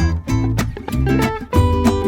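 Background music: acoustic guitar strumming with a steady bass beat.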